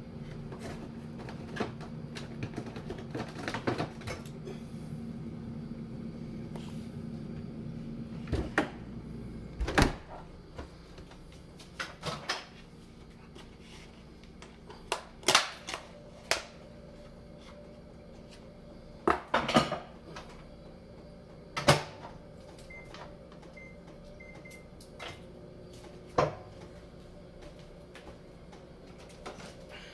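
Kitchen handling noise: a dozen scattered knocks and clatters, like cupboard doors and containers being set down, over a steady appliance hum that stops about ten seconds in. A few faint short electronic beeps sound about two-thirds of the way through.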